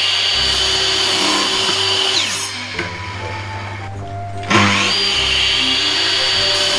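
Electric sliding miter saw cutting wooden boards: the motor runs at full speed with a high whine, winds down about two seconds in, then spins up again about four and a half seconds in for the next cut.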